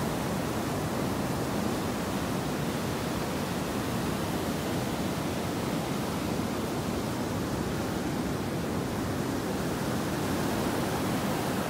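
Sea surf breaking continuously onto a sandy beach: a steady, unbroken rush of waves, about 1.2 to 1.5 metres high.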